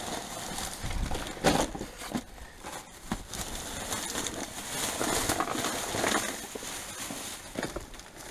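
Plastic rubbish bags and packaging rustling and crinkling as they are rummaged through by hand, with a few sharp knocks of items being handled.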